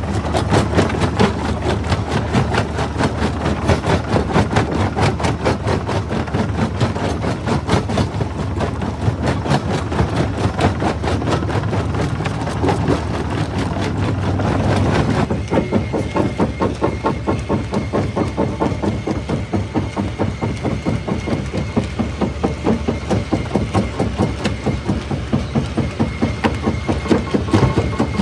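Jaw rock crusher running and breaking stone: dense, rapid cracking and clattering over a steady low machine rumble. About halfway through, the crunching eases into a more even, fast rattle with a faint steady whine.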